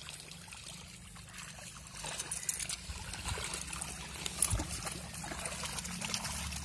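Water trickling and splashing, with small irregular splashes and clicks that grow busier about two seconds in.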